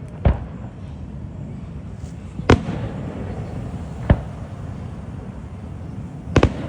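Firework shells bursting in a display: four sharp booms about two seconds apart, the last one a quick double crack, over a steady background hiss.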